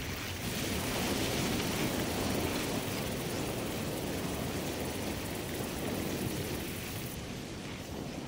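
Sound-design rumble and rush of noise for an animated flight through the cell's crowded interior, swelling about a second in and easing off gradually; its high hiss falls away near the end.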